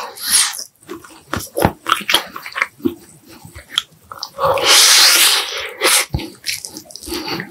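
Close-miked eating: gnawing and chewing meat off pork back ribs, with many short wet smacks and clicks. About four and a half seconds in there is a louder noisy rush lasting about a second and a half.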